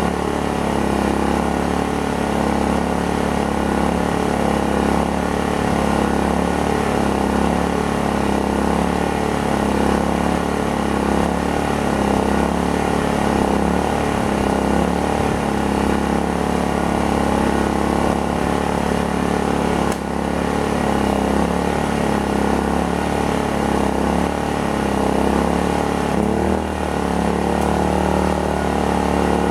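Predator inverter generator engine running steadily under the load of a camper air conditioner. Near the end its pitch rises as the engine speeds up, a small surge as the refrigerator is plugged in.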